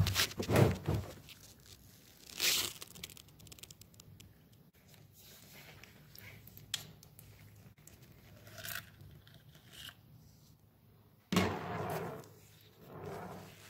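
Intermittent scrapes, rustles and knocks of gloved hands working at the underside of a motorcycle engine, the loudest cluster near the end, over a faint steady low hum.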